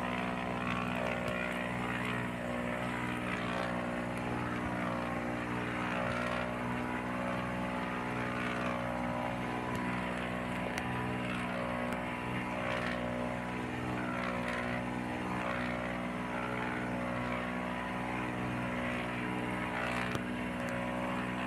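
Motorised outrigger boat (bangka) engine running steadily under way, a constant drone with a hiss over it.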